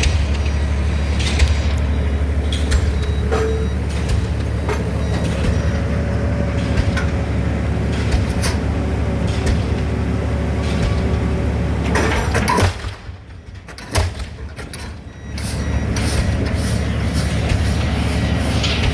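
DD65 diesel pile hammer driving a concrete pile: a steady low engine drone with repeated sharp blows. The sound drops away for about three seconds about two-thirds of the way through, then resumes.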